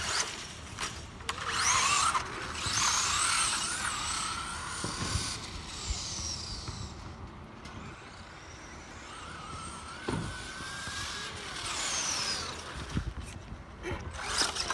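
Radio-controlled monster truck whining as it drives over asphalt, its pitch rising and falling as it speeds up and slows down. A few sharp clicks come near the start and again near the end.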